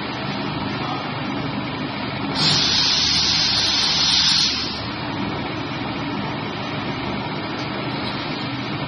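Crusher machine for car interior trim panels running steadily, with a louder noisy stretch of about two seconds, starting about two and a half seconds in, as a panel is fed into its toothed rollers and shredded.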